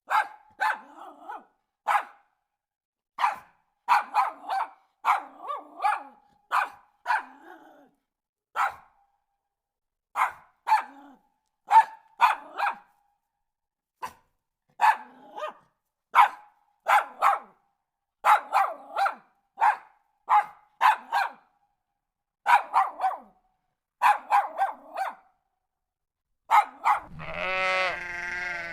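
A dog barking repeatedly in short, sharp barks, often two or three in quick succession with brief gaps between. Near the end a sheep starts a long bleat.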